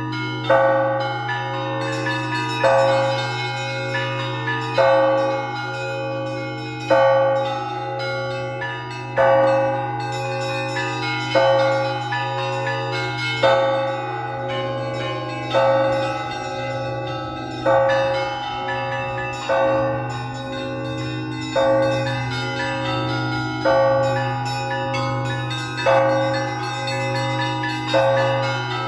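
Russian Orthodox Easter bell ringing played by hand from a belfry. A large bell is struck about every two seconds, and its low hum hangs on between strokes, over a fast, steady rhythm on smaller chiming bells.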